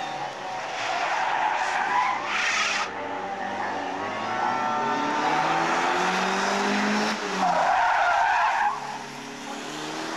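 Montego saloon driven hard through spins and slides: tyres screeching on the tarmac in several long bursts, the loudest about eight seconds in, over the engine revving up and down.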